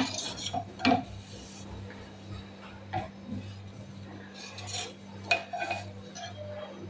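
Knife cutting a cooked chapati on a metal plate: a few scrapes and sharp clicks of the blade against the metal, the loudest near the start and around five seconds in, over a steady low hum.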